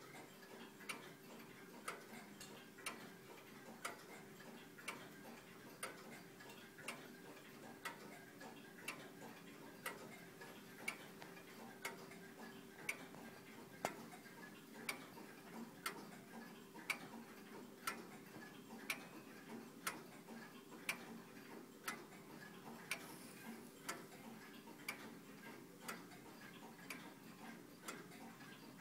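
Late-18th-century longcase (grandfather) clock by William Wasbrough of Bristol ticking steadily, about one tick a second, from its anchor escapement driven by a seconds pendulum. A faint steady hum lies underneath.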